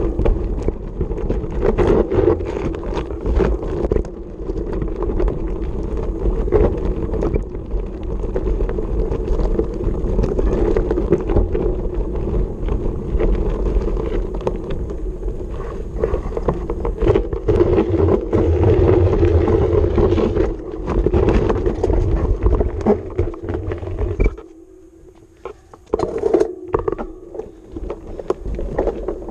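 Specialized mountain bike riding fast over a dirt singletrack, heard from a handlebar-mounted action camera: wind buffeting the microphone, the tyres crunching on dirt and the bike clattering over bumps. Near the end the noise drops away for a second or so, then the clattering picks up again.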